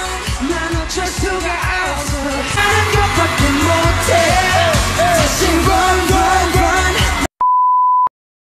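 Pop song with singing over a heavy bass line, getting fuller a few seconds in and cut off abruptly near the end. A short, steady, high beep tone follows.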